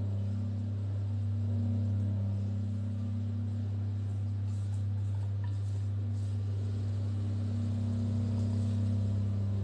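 A steady low hum, with faint soft scrapes of a silicone spatula against a bowl as thick cake batter is scraped out, a few of them around the middle.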